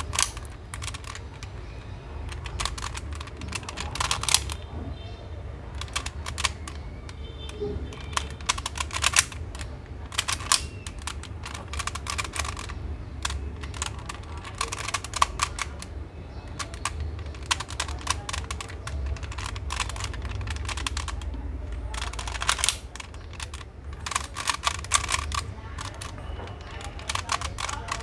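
Latch Cube, a plastic 3x3 twisty puzzle, being turned over and over by hand: quick, irregular runs of plastic clicks and clacks. The faces are being twisted to scramble the cube out of a position where most of them are locked.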